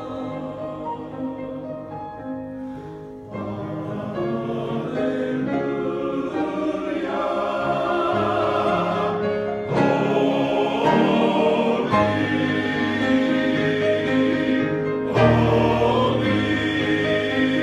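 Men's choir singing a sacred piece in parts, with piano accompaniment; the sustained chords swell louder a few seconds in and again near the middle.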